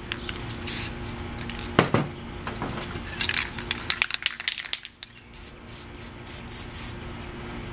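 Aerosol spray paint cans hissing in short bursts, with a single clunk about two seconds in.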